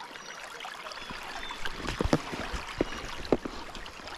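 River water flowing and burbling around the net held in the stream, with a few short soft knocks about halfway through and again near the end.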